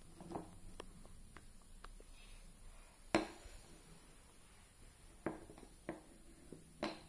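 Laminated wooden domino tiles knocking and clacking on a tabletop as they are picked up and set down. There are a few light knocks at first, a sharp knock a little after three seconds that is the loudest, and several more toward the end.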